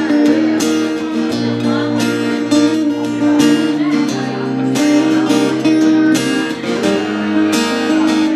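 Two acoustic guitars strumming chords together in an instrumental break of a country song, with no singing.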